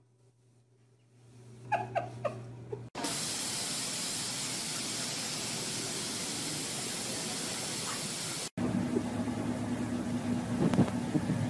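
A few short, high squeaks about two seconds in, then a steady hiss of spraying water that cuts off abruptly after about five and a half seconds, followed by a car engine's low, steady hum with a few knocks.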